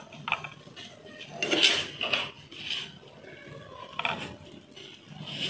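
A spatula tapping and scraping against a ceramic plate as fried potato patties are set onto it: a handful of separate light clinks, the loudest about one and a half seconds in.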